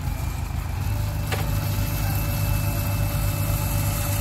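Heavy diesel engines of a backhoe loader and a hydraulic crane running steadily as they lift an overturned truck, with a faint steady whine coming in about a second in and a single sharp click shortly after.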